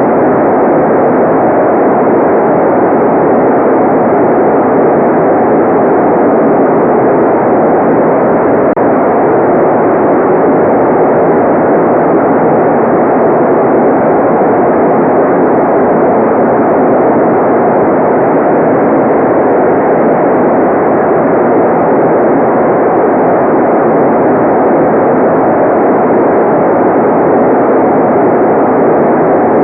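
Continuous generated white noise: an even, unchanging rush, muffled, with its weight in the lower middle and no high hiss.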